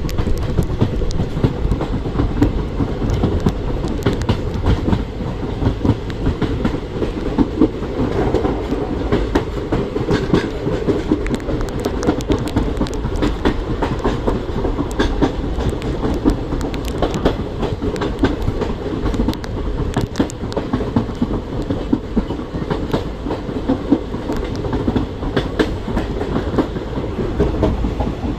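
Passenger train of the Guwahati–Silchar Express running along the line: a steady heavy rumble of the coach with frequent irregular clicks and knocks from the wheels over the rails.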